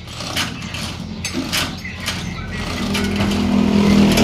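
Scattered knocks and clanks, then from about three seconds in an engine starts running with a steady hum that grows louder.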